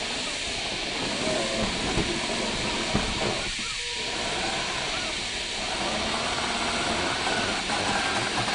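Electric drive of a 1/6-scale RC crawler whining, its pitch rising and falling with the throttle, over a steady hiss. Two knocks come about two and three seconds in, as the tyres climb the log step.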